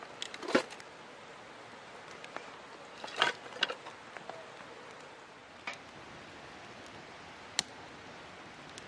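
Split kindling fire burning in a perforated steel fire stand, crackling over a steady hiss, with a few sharp snaps and pops, two small clusters of them in the first half and a single loud snap near the end.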